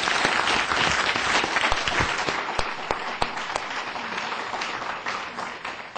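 Audience applauding, a dense patter of many hands clapping that gradually thins out and fades toward the end.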